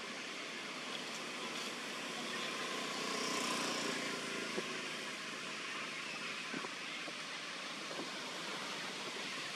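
Steady outdoor background hiss with no clear source, with a few faint ticks about halfway through and again later.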